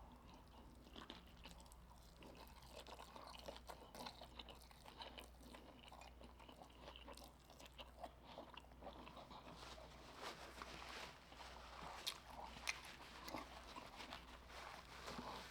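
Faint, close-up crunching and chewing of fried, battered seafood: irregular small crunches and mouth clicks, a little louder near the end.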